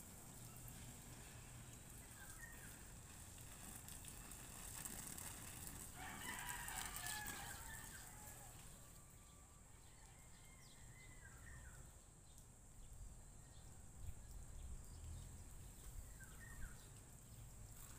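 A rooster crows once, faintly, about six seconds in, the crow lasting about two seconds. A few short, falling bird chirps come before and after it.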